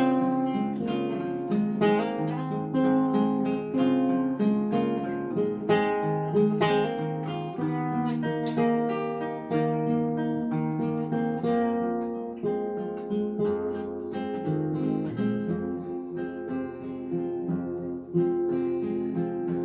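Two acoustic guitars playing an instrumental break between sung verses, mixing strummed chords with picked notes; the playing grows sparser and softer in the second half.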